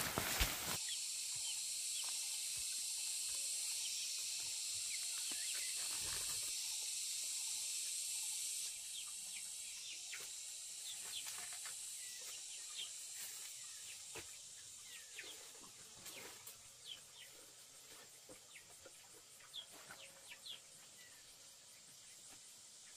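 Outdoor ambience of a steady, high-pitched insect hiss that drops suddenly about nine seconds in and then fades, with many short high chirps scattered through the second half.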